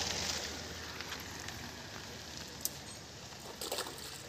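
Pond water splashing at the bank as hands work in it, a short cluster of splashes a little before the end, over a steady faint outdoor hiss.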